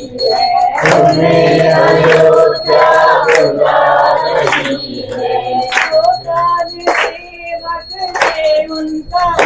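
A group of voices singing a Hindu devotional bhajan together in chorus, with a short break in the singing about seven seconds in.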